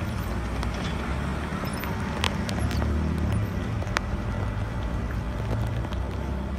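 Cars passing on a rain-wet street: a steady low rumble of engines and tyres, with two sharp clicks about two and four seconds in.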